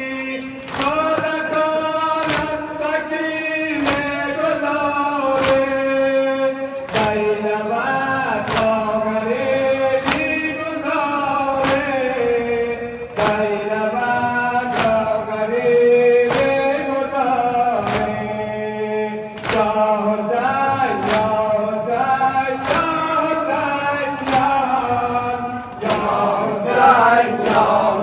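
Male voices chanting a Shia mourning lament (noha) in Persian, with mourners slapping their chests in a steady beat, a little over one strike a second (sine-zani).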